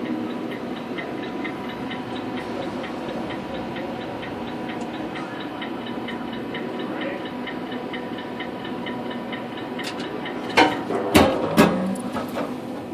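Arcade game machine ticking steadily, about two to three ticks a second, over the steady hum and tones of arcade machines. About ten seconds in there are a few louder clattering knocks.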